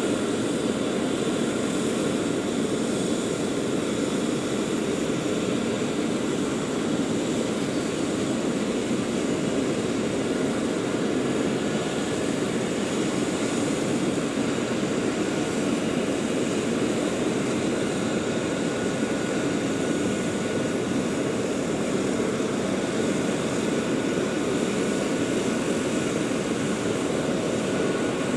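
Eurocopter EC135 (Airbus H135) helicopter running steadily on the ground, its twin turbine engines whining and its main rotor turning.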